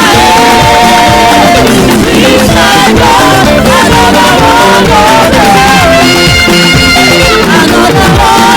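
Loud live church band music: a melodic lead line with slides and bends over a steady backing of drums and bass.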